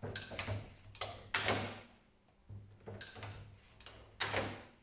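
Lee LoadMaster progressive reloading press being worked by hand: a series of short metallic clunks and clicks, about seven in all, the loudest about a second and a half in and near the end.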